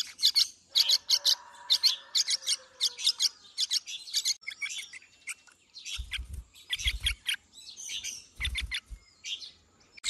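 Brown-breasted bulbul fledglings giving rapid runs of short, high begging chirps, mouths gaping for food. A few low thuds sound between about six and nine seconds in.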